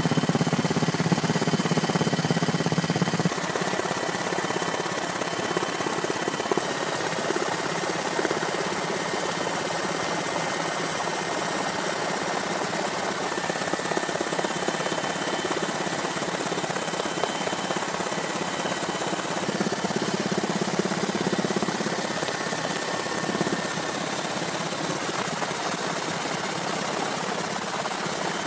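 Steady helicopter engine and rotor noise, an even rush with faint high whines over it; a lower hum drops away about three seconds in.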